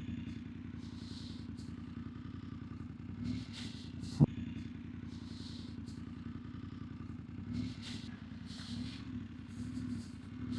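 BMW F900GS parallel-twin engine running steadily at low revs, with a short sharp click about four seconds in.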